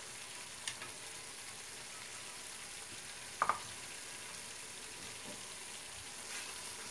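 Höşmerim mixture of curd cheese, sugar, semolina and butter sizzling in a non-stick frying pan with a steady hiss, at a good boil. A small click comes under a second in and a sharper double clink of cookware on the stove comes about three and a half seconds in. Near the end a silicone spatula starts scraping and stirring through the mixture.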